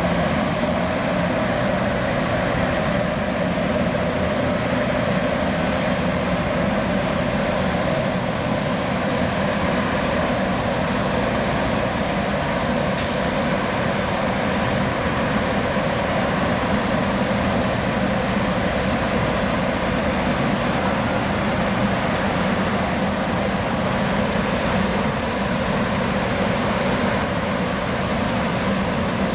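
Jetfoil's gas turbines running, a steady jet-like noise with a constant high whine over it.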